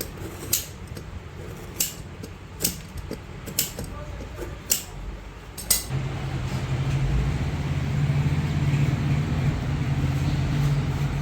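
Sharp knocks or taps about once a second, then a machine starts a steady low hum about six seconds in.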